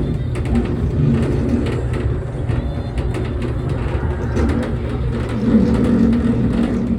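Jolly Roger bulldozer kiddie ride running, a steady low mechanical drone with a shifting mid-range tone that swells about five and a half seconds in.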